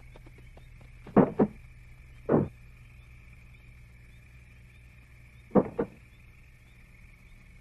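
A few short, sudden thumps in a physical struggle: two close together about a second in, one more a second later, and another pair near six seconds, over a faint steady high hum.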